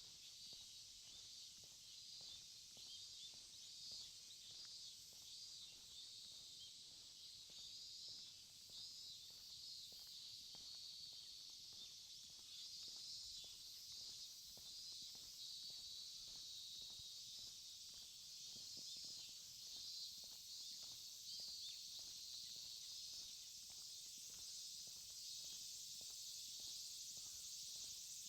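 Insects chirring steadily in a thin high band, faint overall, with soft footsteps at walking pace beneath them.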